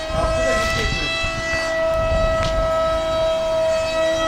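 Radio-controlled model airplane's motor whining at a steady high pitch, with wind rumbling on the microphone.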